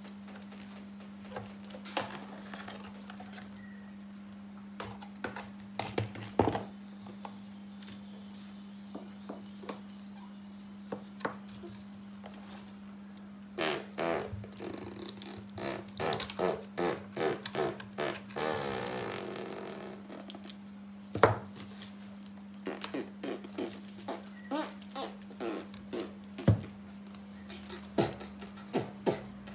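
Hands handling a toy RC helicopter's plastic body and battery pack: scattered clicks, taps and knocks, with a dense run of clicks and a rustle about halfway through, over a steady low hum.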